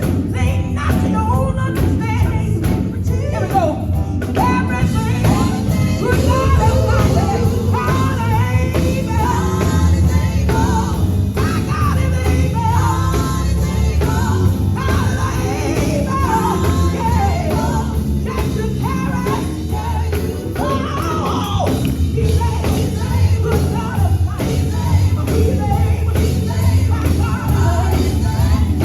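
Live gospel music: a group singing over a full band with heavy bass and drums.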